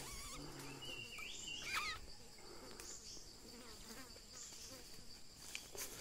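Insects droning with a steady high-pitched whine, with a few short chirps that wobble and fall about one to two seconds in.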